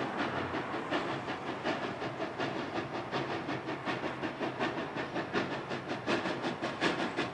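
Exhaust of Central Railroad of New Jersey No. 113, a 1923 ALCo 0-6-0 switcher steam locomotive, chuffing in a quick, even beat of about four or five a second as it works its train, a little louder near the end.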